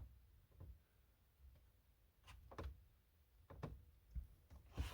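Near silence with a handful of faint, scattered clicks and light knocks.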